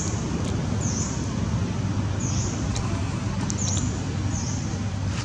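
Short high-pitched animal chirps repeating about once a second, over a steady low rumble.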